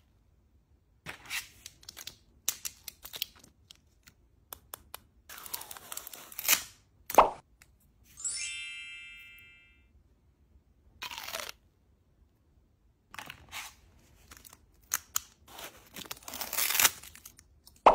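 Close-up handling of plastic mooncake packaging: crinkling wrappers and trays, tearing and light clicks and taps, in separate bursts with quiet gaps, the loudest a sharp crack about seven seconds in. A chime sound effect rings out about eight seconds in.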